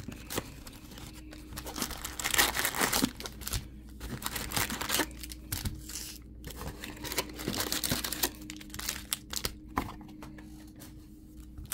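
Foil-wrapped Topps Chrome trading card packs and the cardboard box crinkling and rustling in irregular handfuls as the packs are pulled out of the box and stacked, over a faint steady hum.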